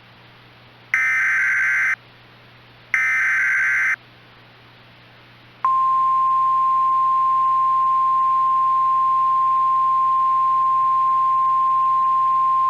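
Emergency Alert System SAME data header: two buzzy, warbling data bursts about a second long and two seconds apart, the last repeats of the header. About five and a half seconds in, the steady 1050 Hz NOAA Weather Radio warning alarm tone starts as one continuous beep. Together they are the signal that a severe thunderstorm warning is being issued.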